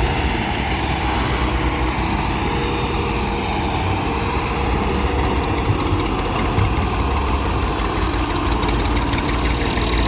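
Heavy diesel engine of earthmoving machinery running steadily at low revs.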